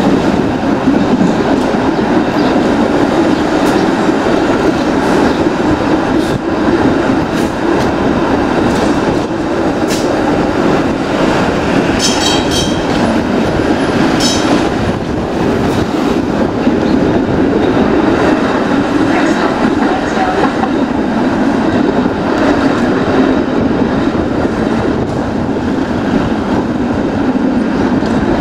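TTC streetcar running along Dundas Street West, heard from inside the car: a steady rumble and rattle with occasional clicks of the wheels over the track. Two short high-pitched tones come about halfway through.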